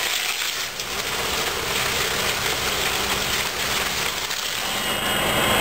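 A fire engine's engine running steadily under a rushing hiss. About five seconds in, a louder, steadier machine drone with a thin high whine comes in.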